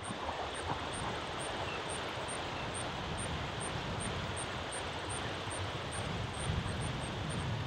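Steady rushing of a river current flowing over shallow riffles, with wind rumbling on the microphone that grows stronger near the end.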